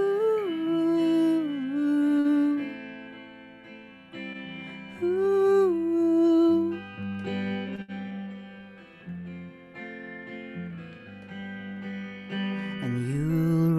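A man singing with guitar accompaniment. The voice slides up into long held notes at the start and again about five seconds in, with the guitar carrying on between them, and a new rising note comes in near the end.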